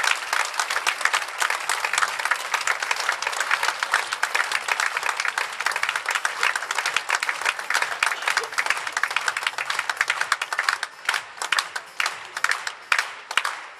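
Theatre audience applauding, a dense sustained round of clapping that thins out to scattered separate claps over the last few seconds.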